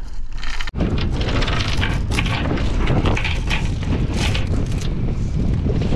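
Small anchor's chain rattling and clattering against the boat deck as it is handled, with wind buffeting the microphone.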